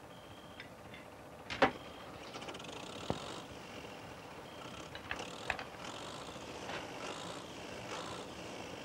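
Metal tools clinking and knocking on a tractor's engine during a repair, with scraping and rattling in between. A sharp metallic knock about one and a half seconds in is the loudest.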